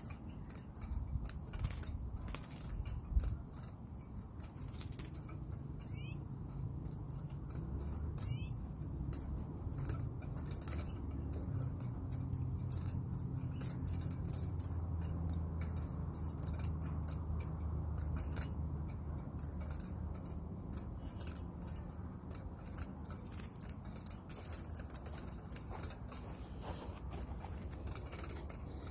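Light irregular clicks and rustling of a fine bird-trapping net being handled and pegged down by hand, over a low rumble. Two brief high chirping trills from a small bird come about six and eight seconds in.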